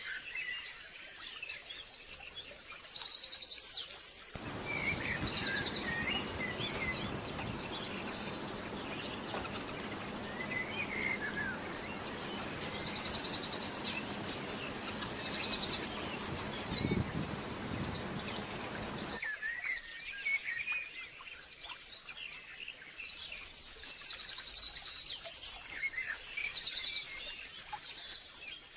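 Wild birds singing: short, fast trills of repeated high notes every few seconds, among scattered chirps, over a faint steady high tone. From about four seconds in to about nineteen seconds in, a steady rushing noise comes in and cuts off suddenly.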